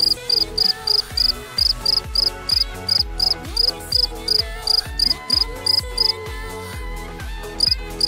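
Cricket-like chirping, very regular at about four chirps a second, over background music with sliding low notes and a bass pulse. The chirping stops for about a second and a half near the end, then starts again.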